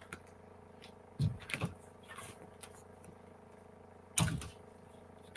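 Handling noises from a flexible blue cutting mat being picked up and moved: a few soft knocks and rustles a little over a second in, then a louder short thump about four seconds in as it is laid down over paper.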